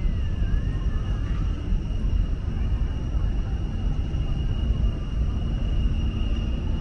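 Steady background ambience: a continuous low rumble with a thin steady high tone over it, and a faint distant voice wavering in pitch during the first second or so.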